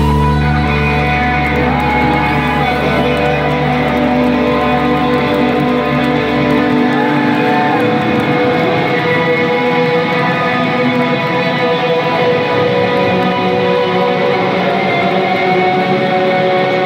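Live rock band's amplified electric guitars, heard through a concert recording, holding ringing sustained chords with a few bent notes. A deep bass note underneath stops about seven seconds in.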